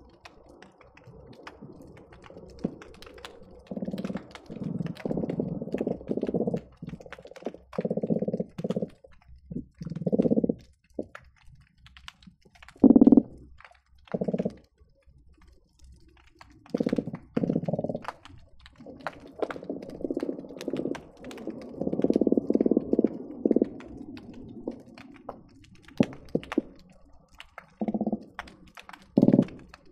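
Croakers calling underwater, heard through a hydrophone: low, pulsing drum-like calls in bouts that come and go, some a fraction of a second and some a few seconds long, the loudest about halfway through. Sharp clicks are scattered over them.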